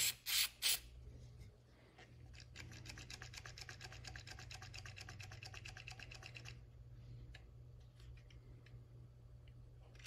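A few short blasts from an aerosol cleaner can sprayed onto a shotgun's action, followed after a pause by a few seconds of rapid scrubbing, about ten strokes a second, that stops suddenly.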